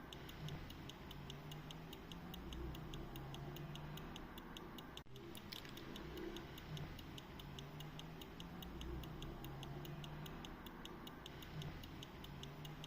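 Antique verge fusee pocket watch ticking steadily and fast, about five light ticks a second, from its verge escapement.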